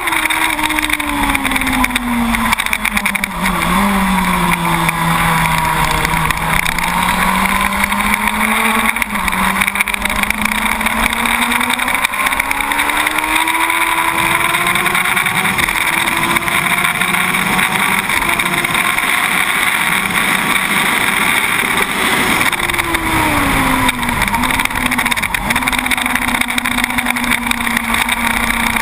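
Yamaha YZF-R1 SP inline-four engine running hard, heard from the bike itself, its pitch rising and falling with the throttle. The pitch sinks over the first few seconds, dips sharply near four seconds and again a little past twenty, then holds steady. Constant wind rush runs under it.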